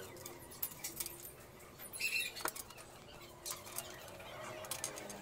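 Light metallic clicks and taps of screws and steel table-leg brackets being handled during assembly, with a louder clink about two seconds in.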